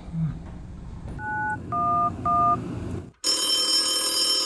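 Telephone keypad tones: three short two-note beeps dialing 9-1-1. After a sudden break about three seconds in, a cordless phone rings with a steady, bright electronic tone.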